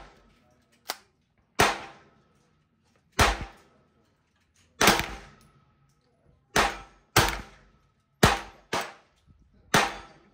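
Ruger PC Carbine 9mm rifle firing single shots, about nine in all. The shots come one at a time, a second or two apart, with a couple in quicker pairs, and each shot cracks sharply and rings off briefly.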